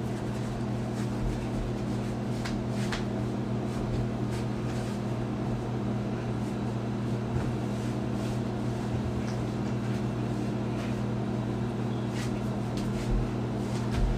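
A steady low mechanical hum, with faint scattered scuffs and a couple of soft thumps from socked feet stepping on a wooden floor near the end.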